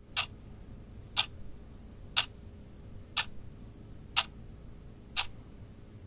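Quartz wall clock ticking, one sharp tick a second, six times, over a faint steady low hum.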